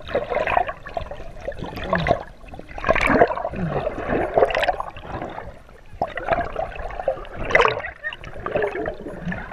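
Water sloshing and gurgling around a waterproof camera held just under the surface, coming in uneven surges every second or two as the water churns and bubbles against the lens.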